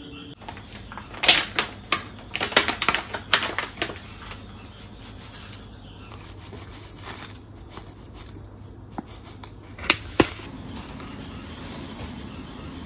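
Crinkling of a paper tea packet and dry loose tea rattling against glass: a cluster of sharp crackles and clicks over the first few seconds, then two sharp clicks about ten seconds in, followed by a low steady hum.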